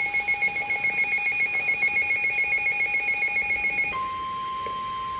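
Emergency Alert System attention tones for a severe thunderstorm warning: a two-pitched alarm tone pulsing several times a second, which gives way about four seconds in to a single steady tone.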